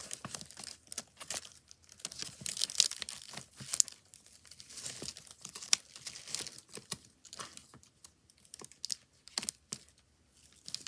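Sheets of paper rustling and crinkling as they are leafed through by hand, in irregular bursts of handling noise that stop briefly near the end.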